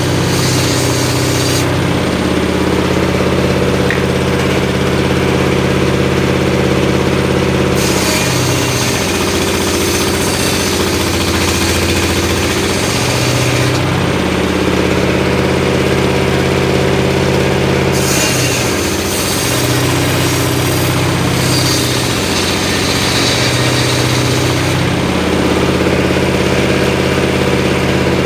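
Homemade engine-driven circular saw running steadily, its engine pitch sagging under load while the blade rips through mahogany with a bright hissing rasp, three times: briefly at the start, then twice for several seconds each.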